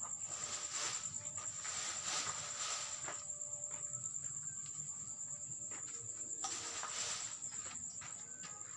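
Crickets chirping in a steady, high, fast-pulsing trill, with a few soft rustles and scuffs over it.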